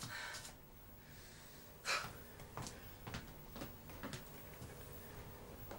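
Soft footsteps on a wooden floor, about two steps a second, starting about two seconds in; the first step is the loudest.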